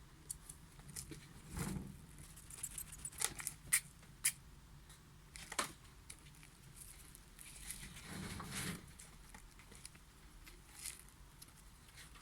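Pet rat moving about and scratching in its cage: scattered rustles and scrapes with a cluster of sharp clicks about three to four seconds in.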